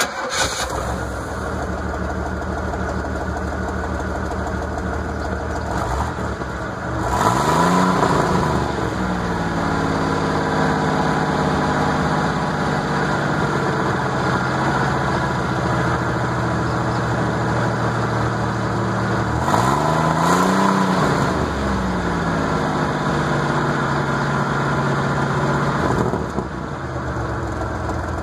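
1980 Pontiac Firebird's V6 engine starting, then idling through its exhaust, heard from beneath the car. It is revved twice, about 7 and 20 seconds in, the pitch rising and falling back to idle each time, and the level drops slightly near the end.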